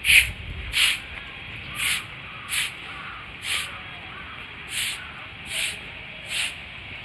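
Footsteps scuffing on a gritty path: a short hissing crunch with each step, about one a second, at an uneven walking pace.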